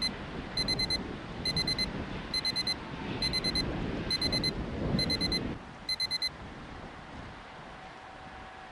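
Electronic alarm-clock beeping: eight bursts of four quick high-pitched pips, about one burst a second, counting out eight elapsed minutes on the timer. Under the early bursts runs wind and water noise, which drops away about five and a half seconds in.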